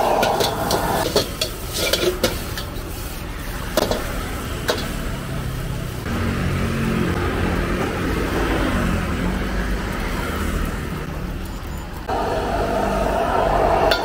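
Wok cooking over a high-output gas burner: a metal ladle clanks and scrapes against the wok as fried rice is tossed and sizzles. The burner's steady rush drops away about a second in, leaving a softer sizzle and low rumble, and comes back on sharply near the end.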